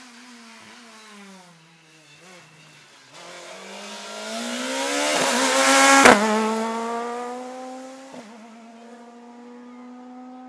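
A Skoda Fabia S2000 rally car's engine at full throttle. It approaches and passes close about six seconds in with a sharp crack, then pulls away with its revs climbing steadily. Two short breaks in the engine note near the end are gearshifts.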